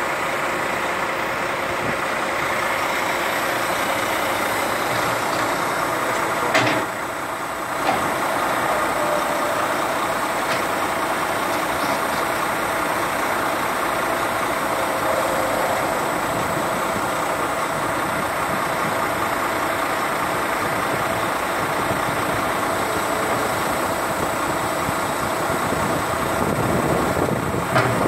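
Caterpillar 428E backhoe loader's diesel engine running steadily while the backhoe boom and bucket are worked, with a sharp knock about six and a half seconds in and louder knocking near the end.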